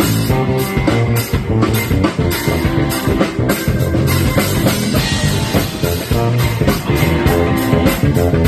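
Live rock band playing with no vocals: an electric bass takes a solo over the drums and guitar, its low notes moving busily beneath a steady drum beat.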